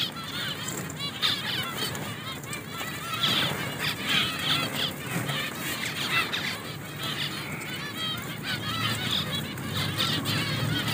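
A cage colony of zebra finches calling: many short chirping calls from many birds overlapping in a constant chatter.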